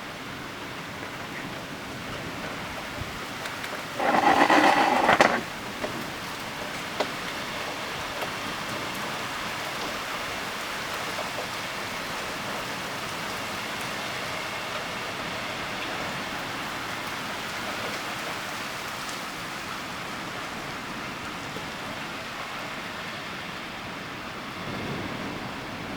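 Steady rain falling during a thunderstorm, with a few small clicks. About four seconds in, a loud burst lasting just over a second cuts in and stops suddenly.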